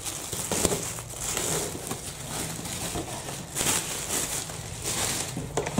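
Clear plastic bag rustling and crinkling in uneven swells as it is pulled off a suitcase-style record player, with a couple of light knocks.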